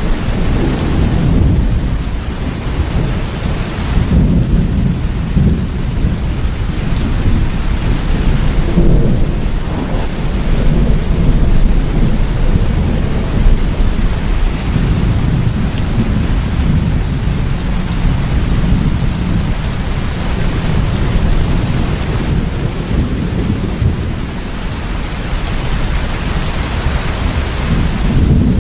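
Steady rain with a continuous low rumble of rolling thunder that swells and eases.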